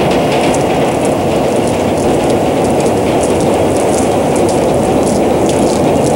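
A train running along the track: a steady, dense rumble with faint light clicks over it.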